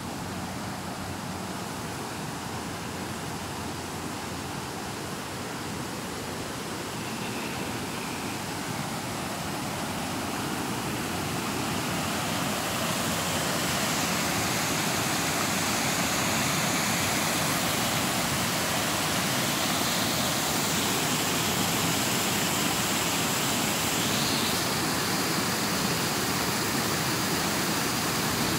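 Rushing water at a river weir: a steady roar of churning water that grows louder over the first half, then holds steady.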